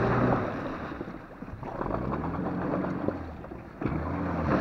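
Car engine revving up and falling back several times, with the churning of wheels working through an icy, water-filled puddle. The car is struggling to get through.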